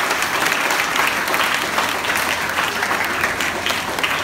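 Audience of seated students applauding, steady dense clapping throughout.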